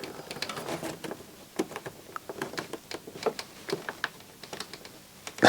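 Irregular small clicks and taps of plastic parts being handled and pried at while a micro hi-fi's plastic casing with snap-in clips is taken apart.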